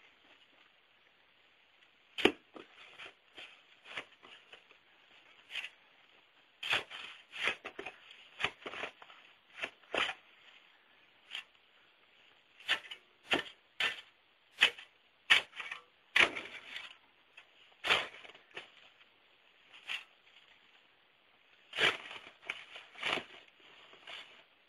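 Scattered sharp crunches and clicks, singly and in quick clusters with pauses between, like snow being stepped on or disturbed.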